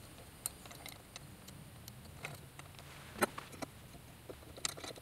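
A handful of faint, scattered metallic clicks from hand tools and hardware as nuts are tightened on a metal mounting bracket; the sharpest click comes a little past three seconds in.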